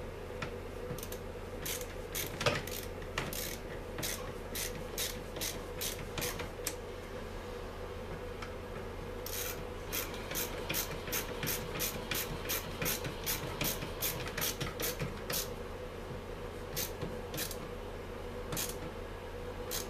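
Runs of sharp clicks and rubbing from hand work with a small tool on a Stihl MS 250 chainsaw's top end, two to four clicks a second, with a pause about halfway through.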